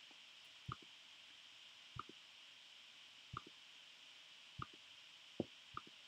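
Faint single clicks at a laptop, about six of them at uneven intervals of roughly a second, over near-silent room tone, as the web page is reloaded again and again.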